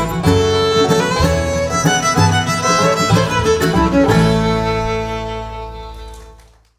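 Fiddle playing a quick run of notes with the bluegrass band, then a final chord held from about four seconds in that dies away to silence.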